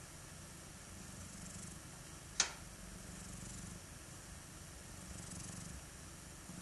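Wood fire burning in a closed wood stove: a faint low rumble that slowly swells and fades, with a single sharp crackle about two and a half seconds in.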